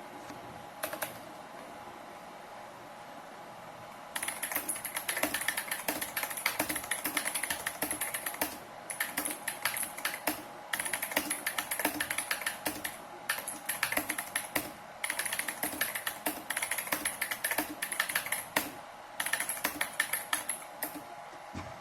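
Redragon Rahu K567 mechanical keyboard with Outemu Blue tactile, clicky switches being typed on, each keystroke a sharp click. One lone click comes about a second in, then fast typing starts about four seconds in and runs in bursts with short pauses.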